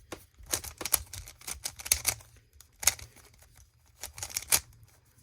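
Rubik's Cube being turned by hand: runs of quick plastic clicks and clacks as the layers rotate, in several short bursts with brief pauses between.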